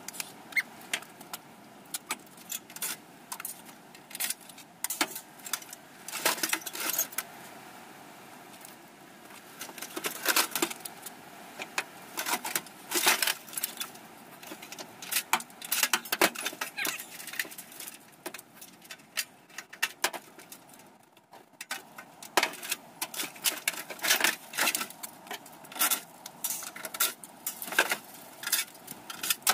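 Sheet-metal panels and parts of an air conditioner clanking and rattling as it is pulled apart by hand: irregular metallic knocks and clatter, with a short pause about twenty seconds in.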